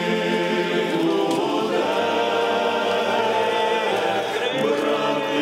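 A choir of voices singing a slow song in long held notes.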